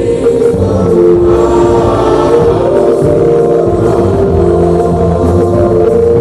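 A group of people singing a slow song together, one man leading into a microphone, with long held notes.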